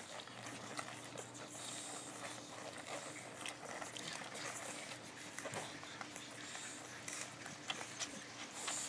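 Boxer puppies suckling from their mother: faint, irregular wet smacking and clicking.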